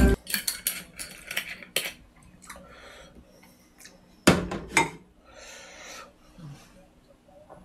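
Glass soju bottle and tableware clinking and knocking on the table: light clicks in the first two seconds, then the loudest knocks about four and a half seconds in as the bottle is set down.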